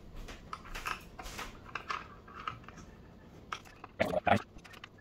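Light clicks and scrapes of an Allen key and bolts being worked into the plastic housing of a Leader Ecoplus 230 pump as it is reassembled, with a few louder knocks about four seconds in.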